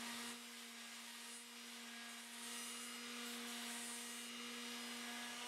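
Corded electric detail sander running steadily on painted wood trim, with a steady motor hum, sanding off loose, flaking paint.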